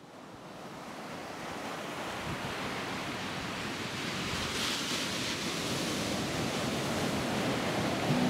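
A steady rushing noise, like surf or wind, fading in and slowly growing louder, with a brighter swell about halfway through.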